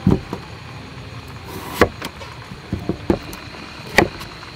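Large kitchen knife cutting peeled potato into fry-sized sticks on a thick wooden chopping board: about five sharp knocks as the blade goes through and strikes the wood, at uneven gaps, the loudest about two seconds in.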